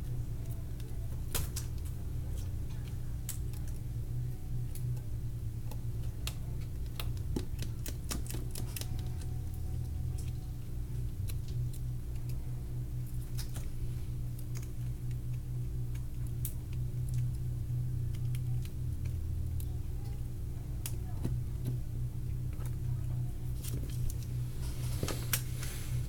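Scattered small clicks and taps, like tools and small parts being handled during a phone repair, over a steady low hum.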